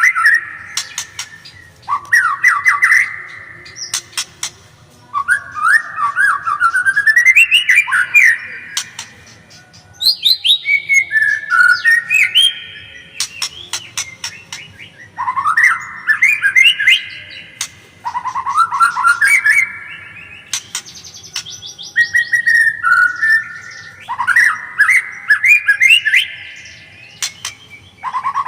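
White-rumped shama (murai batu) singing. Loud bursts of quick, rising whistled notes come every two to three seconds, with sharp clicks between the phrases.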